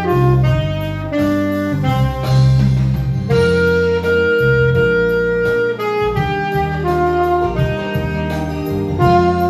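Alto saxophone playing a melody of held notes, one long note sustained in the middle, over an accompaniment with a low bass line.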